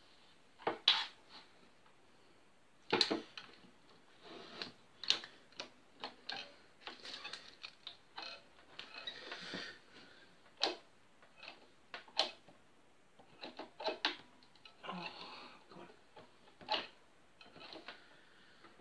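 Irregular clicks, knocks and rustles of clamps and a parcel-taped phone-book caul being handled and fitted over a freshly glued guitar headstock break. The sharp knocks come singly at uneven gaps, with short spells of rustling between them.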